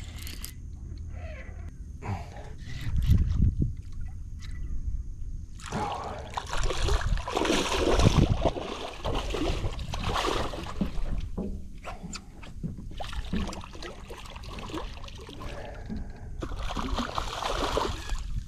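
A hooked redfish splashing at the water's surface beside a boat. The splashing is heaviest from about six seconds in to about twelve seconds in and comes again near the end, with dull low thumps among it.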